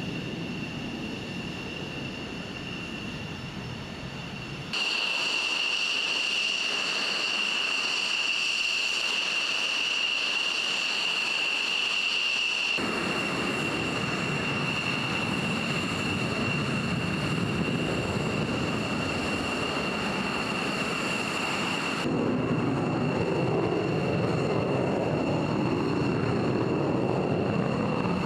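Steady high-pitched turbine whine over a rushing roar from jet aircraft running on a flight line. The sound changes suddenly three times.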